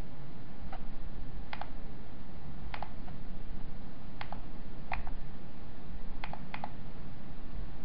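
Computer mouse clicking, about seven single clicks spread unevenly over several seconds, with two close together near the end, over a steady low background hum.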